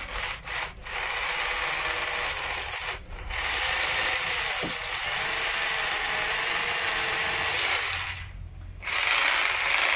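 Hanbo 920 W three-function rotary hammer drill running with a 10 mm masonry bit in a hole in a concrete slab. It gives a few short bursts, then runs steadily with a brief break, stops about eight seconds in, and runs again briefly near the end.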